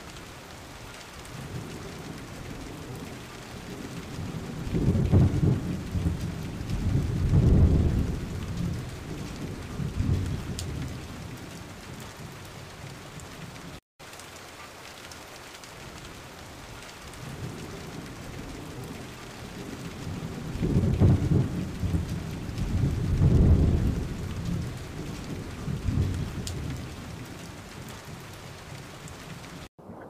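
Steady rain hiss with rolling thunder: deep rumbles swell and fade three times. After a brief dropout about 14 seconds in, the same stretch of sound repeats.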